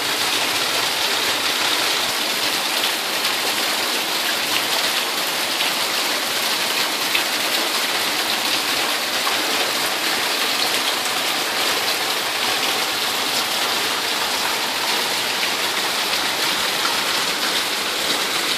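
Heavy tropical downpour: rain falling hard and steadily on lawn, leaves and concrete, an even hiss of countless drops that holds at one level throughout.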